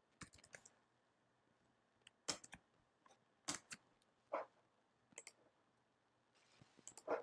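Clicks of a computer mouse and keyboard, a few at a time with quiet pauses between.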